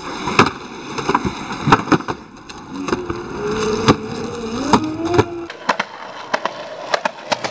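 Skateboard on concrete: sharp clacks of the board hitting and landing off a concrete bench, then the wheels rolling over the path with repeated clicks from the pavement seams.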